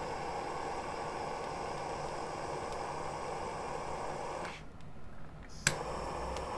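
Handheld gas torch flame hissing steadily. About four and a half seconds in it drops away for roughly a second, then a sharp click and the hiss resumes.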